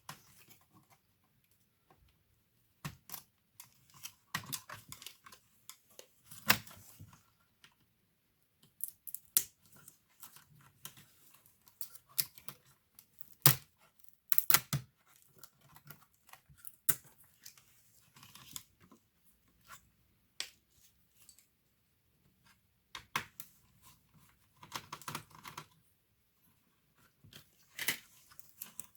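Irregular clicks, scrapes and rustles of small plastic and metal laptop parts being handled and worked on by hand, with short pauses between bursts.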